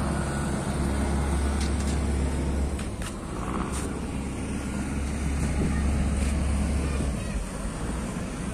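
Low, steady drone of a large passenger boat's engine running, which stops suddenly about seven seconds in.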